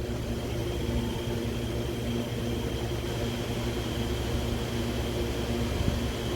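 A steady mechanical hum with a thin high whine over a light hiss.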